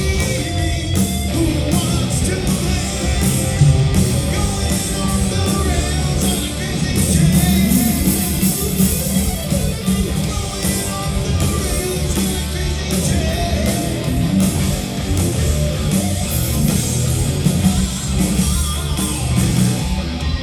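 Live rock band playing loud, with distorted electric guitars, heavy bass and drums and a singer, heard as a heavily booming audience recording.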